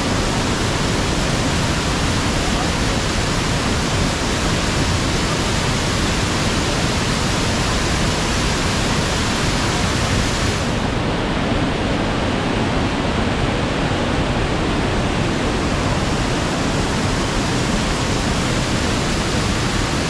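Manavgat Waterfall, the Manavgat river falling over a low cliff, making a loud, steady rush of water. About halfway through, the highest hiss softens slightly.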